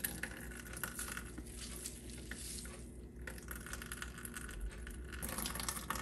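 Handfuls of grated English cucumber being squeezed by hand, the juice dripping and spattering into a stainless steel sink; faint, with scattered small wet ticks.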